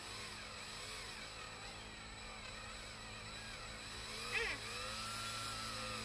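Power drill in low range running steadily, turning the auger shaft of a DIY flow-frame honey pump, a low even hum. A brief higher sound comes in about four and a half seconds in.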